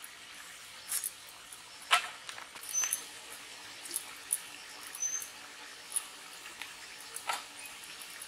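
Red amaranth stalks being cut on a bonti, the fixed upright kitchen blade: irregular crisp snaps as each stalk is pushed through it, the loudest about two seconds in. Two short high squeaks come in between.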